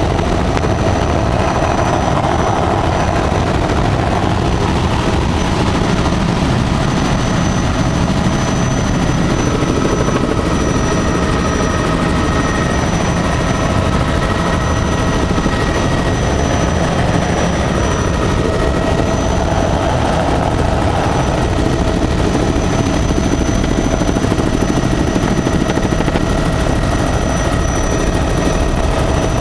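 Helicopter in flight heard from inside the cabin: loud, steady rotor and engine noise with a thin, high-pitched whine over it.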